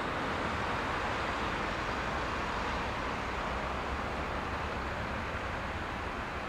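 Steady outdoor background noise by the tracks, an even hiss with a low rumble beneath and no distinct events.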